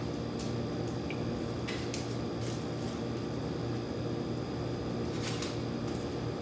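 Rubber spatula spreading banana bread batter in a foil-lined baking pan: a few short, soft scraping strokes over a steady low hum.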